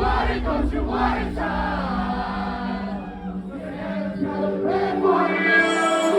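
Music with held, choir-like sung vocals over sustained chords; a heavy bass beat is present in the first second or so, then drops away.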